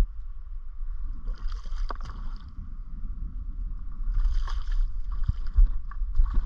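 A hooked rainbow trout splashing and swirling at the surface of shallow water just in front of the landing net, in short bursts about a second in, again around four seconds and near the end, over a steady low rumble.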